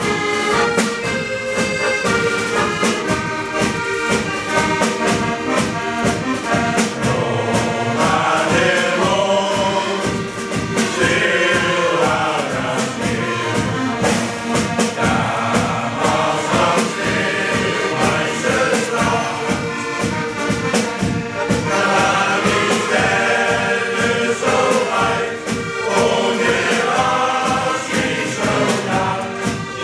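Men's shanty choir singing a German sea shanty to an accordion and a drum kit played with sticks, which keeps a steady beat.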